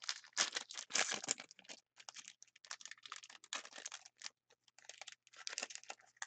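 Foil wrapper of a hockey card pack being torn open and crinkled by hand: a dense run of irregular crackles and snaps, loudest in the first second or so.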